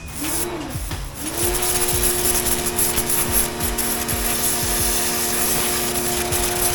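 Electric pressure washer: its motor whirs up briefly about half a second in and drops away, then spins up again about a second in and runs steadily with the hiss of the water jet spraying, as the spray gun's trigger is released and pulled.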